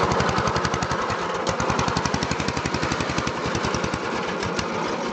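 Racing lawn mower's 14.5 hp engine, with cam work and a modified exhaust, running cold on the choke just after starting, its rapid firing pulses plainly heard.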